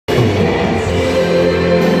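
John Suhr electric guitar playing a worship song with sustained notes, over a backing of singing voices; the music starts abruptly right at the beginning.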